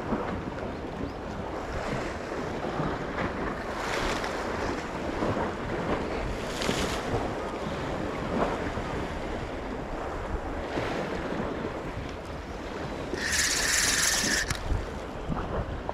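Sea waves washing against the rocky shore, with wind buffeting the microphone. A louder, sharper hiss lasts about a second and a half near the end.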